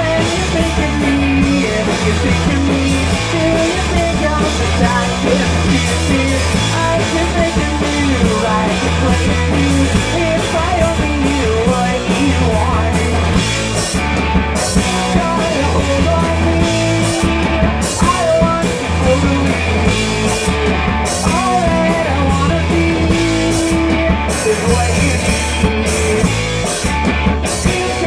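A live rock band playing a loud punk-rock song on electric guitar, bass and drum kit.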